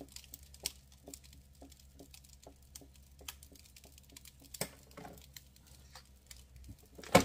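Faint, irregular light ticks and taps, then a single sharp click about seven seconds in as the vacuum sealer's lid is unlatched to release the sealed bag.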